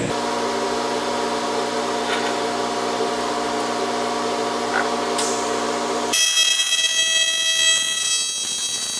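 A steady electrical hum, then about six seconds in an AC TIG arc strikes on aluminum and buzzes at a high pitch for about three seconds, a tack weld joining a sheet-metal intake runner to its base plate, before cutting off.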